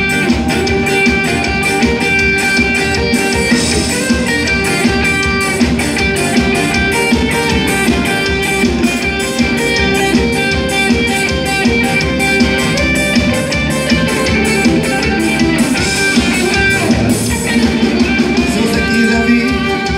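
Live band playing an instrumental passage: electric guitar over bass guitar, with a steady beat.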